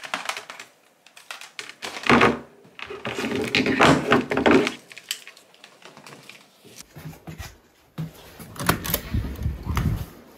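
Knocks, thunks and rustling as a laptop, its cables and a mouse are picked up from a wooden table and packed into a bag. Near the end, low rumbling handling noise and steps while walking.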